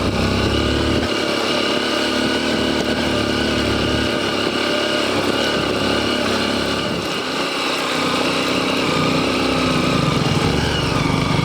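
Motorcycle engine running as the bike is ridden, its pitch drifting up and down with the throttle.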